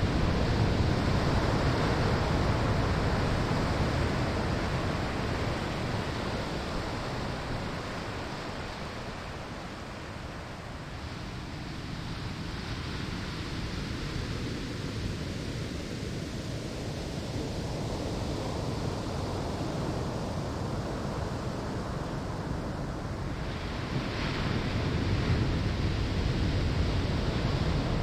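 Ocean surf on a sandy shore: a wave's wash fades away through the middle, then another wave breaks about 24 seconds in and the rushing swells again.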